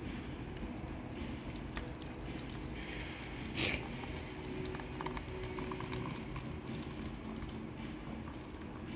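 Water poured in a steady stream into a plastic measuring jug, splashing onto a submerged car thermostat, with one brief louder splash about three and a half seconds in.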